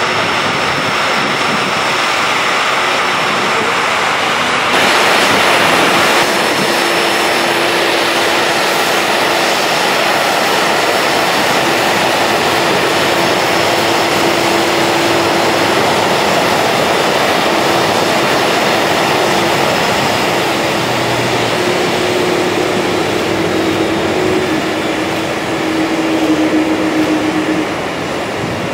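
Jet aircraft engines running steadily at an airport, a continuous rushing noise. It swells slightly about five seconds in, and a steady low hum joins about two seconds later.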